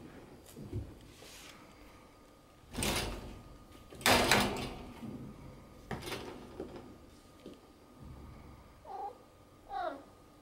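A cat's paw knocking and scraping against a wire mesh pet fence and the floor in a few noisy clatters, the loudest about four seconds in, then two short cat meows near the end.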